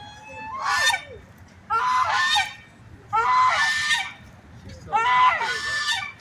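Waterfowl at a pond calling: four loud, harsh calls, each under a second long, about a second and a half apart.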